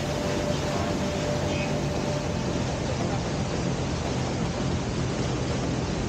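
Waterfall and canyon stream rushing: a steady, even roar of falling water.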